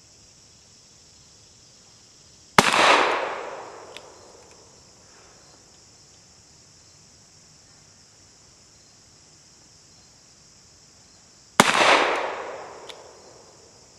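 Two shots from a Webley Mk VI revolver firing .455 Webley, about nine seconds apart, each a sharp crack trailing off in an echo over a second or so. Insects keep up a steady high buzz behind.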